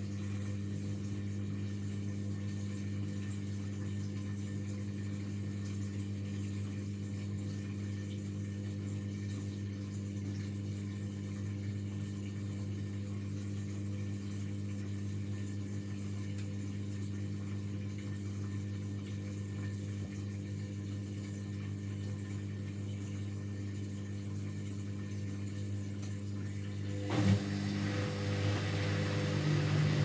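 Indesit front-loading washing machine with its drain pump humming steadily while the drum stands still. Near the end the drum motor starts and the drum begins turning, and the sound gets suddenly louder and rougher.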